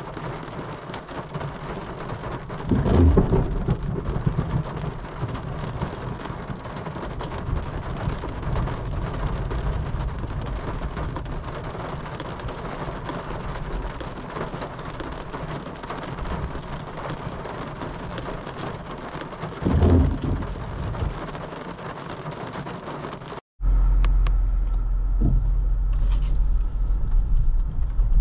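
Heavy rain pouring steadily, with two louder low rumbles about 3 and 20 seconds in. After a short break near the end, a steady low drone takes over.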